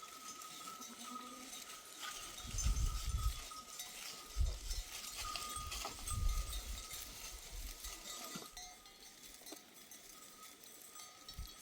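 Livestock bells on a grazing flock of sheep and goats clinking and ringing, with one bell tone holding steady. Three low rumbles on the microphone stand out a few seconds in.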